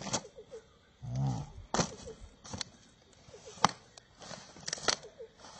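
Fresh banana leaves crackling and rustling as they are folded into a packet, with several sharp crackles. A short low hum from a man's voice about a second in, and faint repeated chirps behind.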